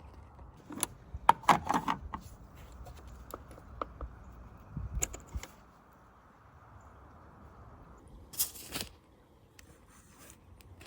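Small plastic clicks and knocks of hands working at a car's fuse box, opening it and pulling a fuse, with a brief rustle about 8.5 s in.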